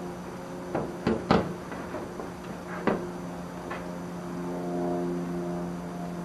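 A handful of sharp knocks and clunks, the loudest about a second in, over a steady low hum. Faint held tones come in from about four and a half seconds.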